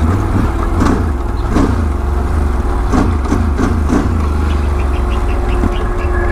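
Can-Am Renegade 1000's V-twin engine running slowly, with a steady whine and a recurring noise that comes round about once or twice a second. The rider cannot place it and wonders whether it is the drive belt.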